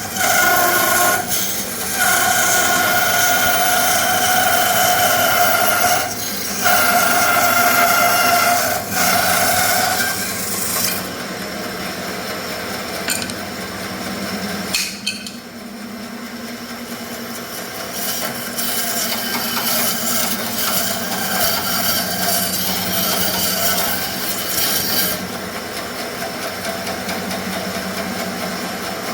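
Bandsaw cutting through a thick block of wenge hardwood, with a steady whine that breaks off briefly three times. After about eleven seconds the whine stops and the saw keeps running with a quieter, lower hum.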